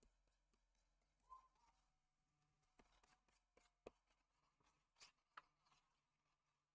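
Near silence, with a few faint scattered taps and scratches of a pen stylus on a graphics tablet.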